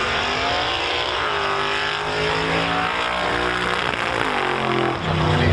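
Drag-race cars running at full throttle down the strip. The engine note sweeps down and back up several times as they shift and pull away.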